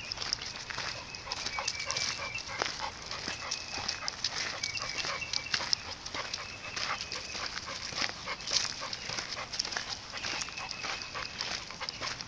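Cane Corso whining in thin, high-pitched stretches that come and go, over steady crunching footsteps and clicks from walking on a leaf-strewn path.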